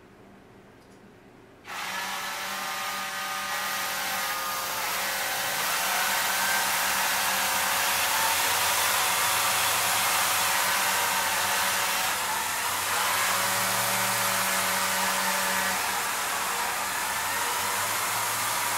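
Motors of a homemade six-axis motion-control camera rig running as it drives the camera to its next position: a steady whirring hiss that starts suddenly about two seconds in, with whining tones that come and go as different axes move.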